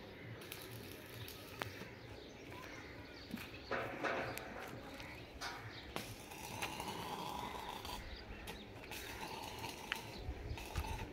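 Faint crackle of stick arc welding on a steel frame, with scattered small clicks. A single harsh bird call, the loudest sound, comes about four seconds in.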